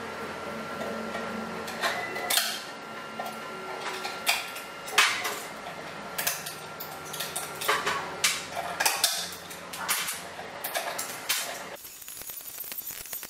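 Pliers and small metal parts clinking and clattering against a stainless steel tray: a string of sharp, irregular clicks and clanks, the loudest about five seconds in.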